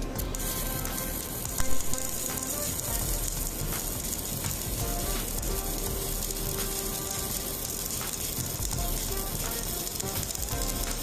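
Stick welding arc sizzling and crackling steadily as an electrode runs a horizontal fillet weld joining thick steel to thin sheet, with one louder pop about two seconds in.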